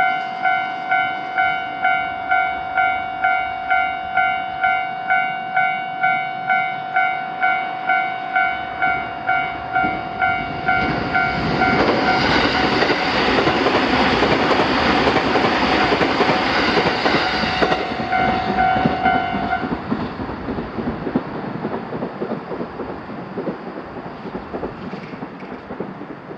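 Japanese level-crossing electronic alarm bell ringing in a steady repeating ding, about two strokes a second. About eleven seconds in, a train passes over the crossing for some seven seconds, a loud rushing rumble. The bell stops about twenty seconds in as the crossing clears.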